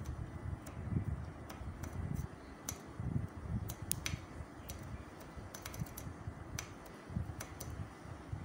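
Close handling noise of stiff embroidered organza fabric being turned over by hand: low, uneven rubbing rumbles with scattered sharp light clicks at irregular moments.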